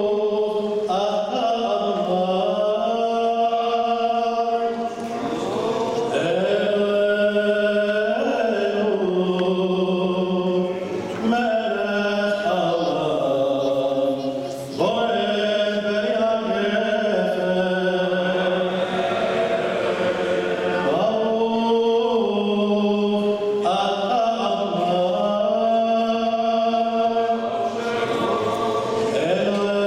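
A singer chanting a slow, melismatic melody with long held notes that glide from pitch to pitch, pausing briefly for breath about five and fourteen seconds in.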